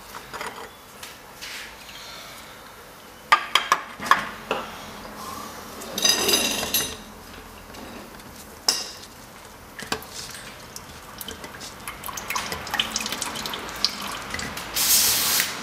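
Metal clinks and scrapes as gloved hands pull the oil strainer plate, strainer and gaskets off the bottom of an air-cooled VW Type 1 engine, with oil dripping into a drain tray. A cluster of sharp clicks comes a few seconds in, and short scrapes follow.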